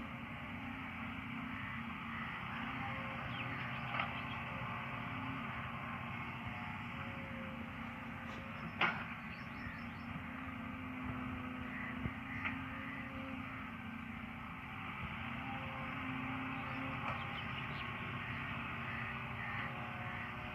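Distant diesel engine of an excavator running steadily as it loads a tractor trolley, with a few sharp knocks scattered through, the loudest about halfway.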